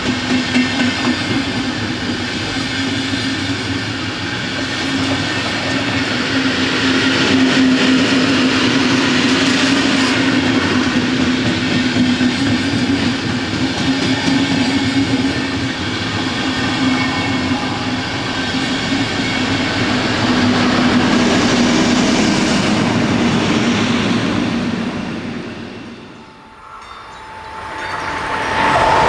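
Diesel-hauled museum train's passenger coaches rolling past close by, wheels clattering over the rails under a steady low drone. Near the end the sound dips away and comes back as another passenger train approaches, with a steady high tone over it.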